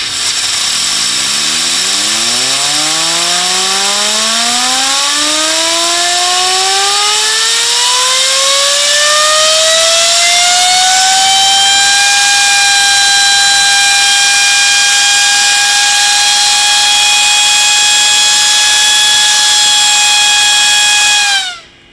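Duramax drop-in turbocharger spun on a VSR balancing rig: a loud rush of air with a whine that climbs steadily in pitch for about ten seconds as the shaft spools up. The whine then holds at a steady high pitch, and drops and cuts off shortly before the end as the turbo is shut down.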